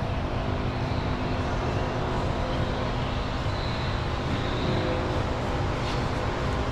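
Steady rumble of a running motor vehicle engine, with a faint click about six seconds in.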